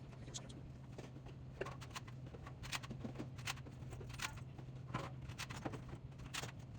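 Light scattered clicks and rustling of snack packages and items being handled while restocking a vending machine, over a steady low hum.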